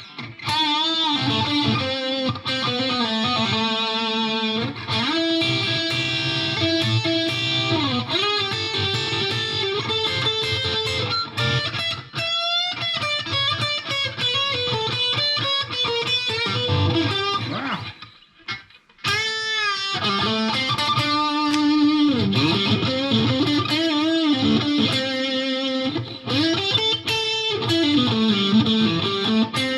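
Fender Stratocaster electric guitar played through a Fender Mustang GTX100 modeling amp on its high-gain lead preset. It plays distorted lead lines with string bends and vibrato, with a brief pause about eighteen seconds in.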